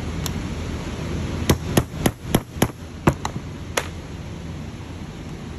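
Small hammer tapping on a socket to drive the pull-rod plate down onto the splined shaft of a replacement EGR valve actuator. About eight sharp metal taps come in quick succession, starting about a second and a half in.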